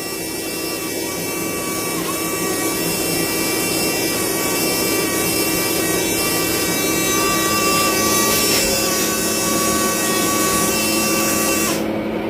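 Electric motor and gears of an RC construction machine running steadily under remote control, a continuous mechanical whine that swells slightly and stops near the end.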